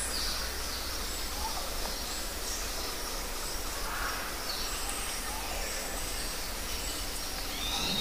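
Steady outdoor nature ambience: an even background hiss with faint, scattered high bird chirps.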